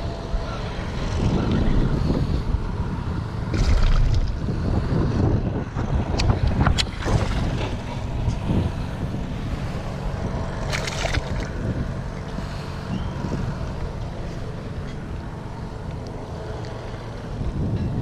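Wind buffeting an action camera's microphone: a loud, low, rumbling rush that swells and eases with the gusts, with a few sharp clicks and knocks around the middle.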